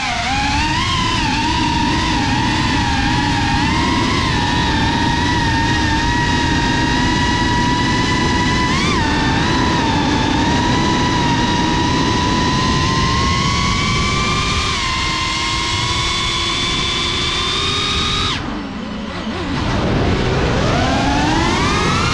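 GEPRC FPV quadcopter's motors and propellers whining steadily, the pitch drifting up and down with throttle, over a low wind rumble on the onboard camera's microphone. Near the end the throttle is cut and the whine drops away for about a second, then climbs again as the motors spool back up.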